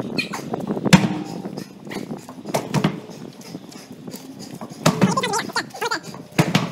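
A man straining to heave a large strongman tractor tire up off concrete, with effortful voice sounds and several sharp knocks and thuds. The loudest knock comes about a second in.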